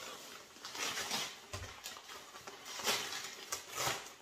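Rustling and crinkling of black fabric and packaging being pulled out and handled by hand, in a series of short swishes.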